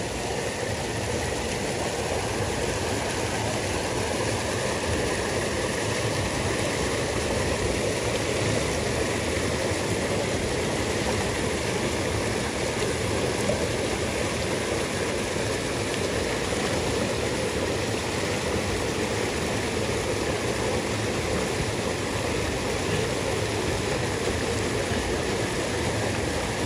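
Fast-flowing river water rushing steadily over a small cascade: an unbroken, even rush with no pauses.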